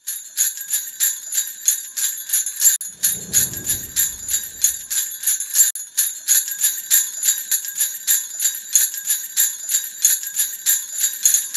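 Sleigh bells shaken in a steady rhythm of about four shakes a second, with a brief low rumble about three seconds in.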